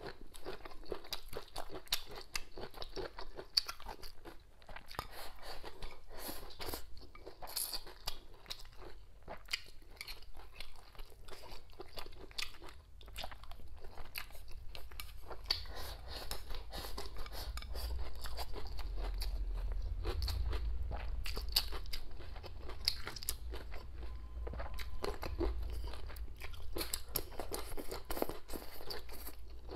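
Close-miked eating: a person biting and chewing crunchy raw green chili peppers with rice, with many irregular crunches. A low rumble runs under the second half.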